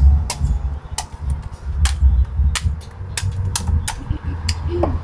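A machete chopping the husk of a green jelly coconut to open it for drinking: about eight sharp strikes, roughly one every half second, over a low steady rumble.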